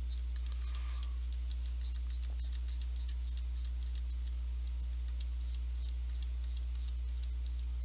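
Steady low electrical hum with faint, irregular light clicks over it.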